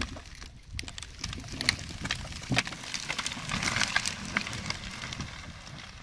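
Dry branches and twigs snapping and crackling in irregular sharp cracks, over a low rustle, with a denser run of crackling about halfway through.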